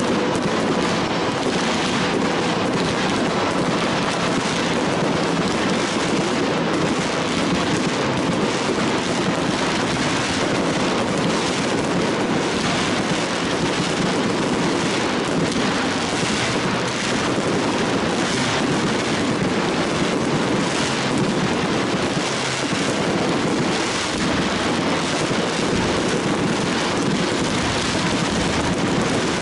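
Fireworks barrage: many shells bursting in quick succession, so the bangs run together into one continuous din with no pauses.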